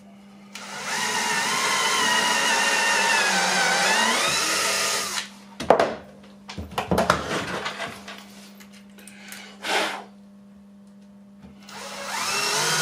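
Bosch cordless drill-driver running with a countersink drill bit, boring a pilot hole into a wooden batten for about four and a half seconds, its motor pitch sagging as the bit cuts in. Then a few sharp knocks and clatter as the drills are handled and set down, and near the end a cordless drill starts driving a wood screw.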